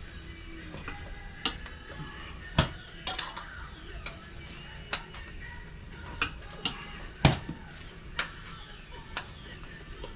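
Metal tire irons clinking and knocking against a dirt bike wheel rim as the tire bead is levered on: irregular sharp clinks, two louder knocks a couple of seconds in and just past the middle. Faint rock music in the background.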